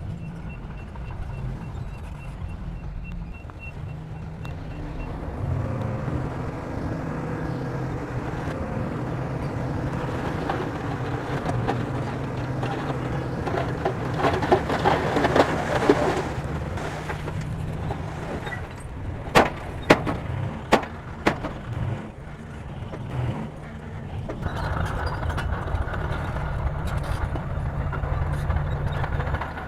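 Diesel bulldozer engine running steadily under load, with a spell of metallic clatter midway and a few sharp, loud metal knocks a few seconds later.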